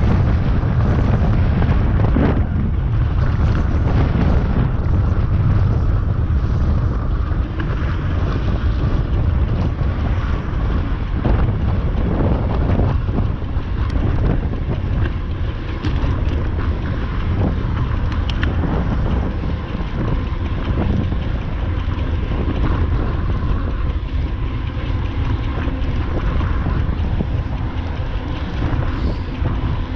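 Strong wind buffeting the microphone: a steady, loud low rumble, with a few short knocks here and there.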